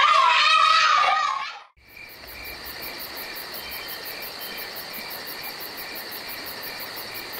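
Crickets chirping steadily: a high, even trill with regularly spaced pulses. It starts about two seconds in, right after music cuts off.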